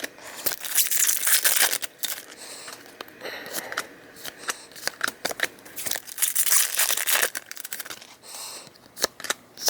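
Foil Pokémon TCG booster pack wrappers being torn open and crinkled, in a few bursts of rustling with sharp clicks between.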